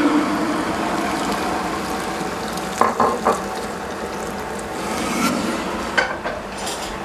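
Boiling water pouring from a kettle into a stainless steel saucepan over dry rice noodles, a steady splashing hiss. Two metal clinks come about three seconds in, and a knock about six seconds in.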